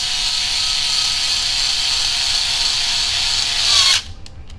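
Small cordless electric screwdriver running steadily as it drives a screw into a plastic RC crawler skid plate. Its whine drops slightly as the screw seats, then stops about four seconds in.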